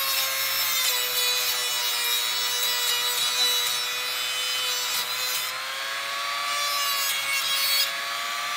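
Rotary tool spinning a fiberglass-reinforced cut-off wheel at high speed, its motor whining steadily while the wheel grinds through steel wire mesh with a gritty, hissing rasp. The motor's pitch sags a little under load mid-cut, and the grinding thins out about five seconds in, returning briefly near the end.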